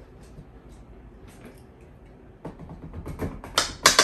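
Knife chopping a cucumber on a wooden cutting board. A few faint taps, then a quick run of sharp chops starting about two and a half seconds in, loudest near the end.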